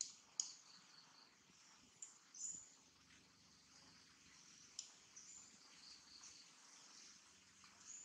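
Quiet outdoor ambience: faint high-pitched chirping from birds and insects, with a few short sharp chirps at about half a second, two and a half seconds and five seconds in.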